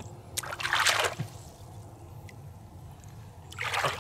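Splashing in shallow floodwater as hands grope and grab for fish: a longer, louder splash about half a second in and a shorter one near the end.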